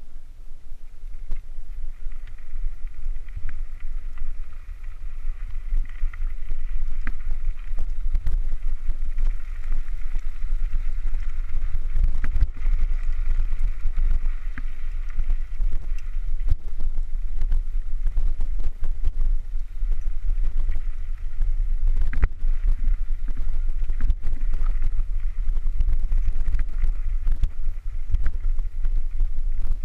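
Mountain bike riding over a rough dirt track, the bike rattling and knocking over bumps, with a steady low rumble of wind buffeting the microphone.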